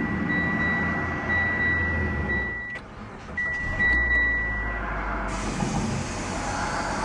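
2011 Mitsubishi Lancer Sportback's four-cylinder engine being started: a steady high tone and cranking for the first few seconds, then the engine catches about four seconds in and settles into a quiet, steady fast idle near 1,300 rpm.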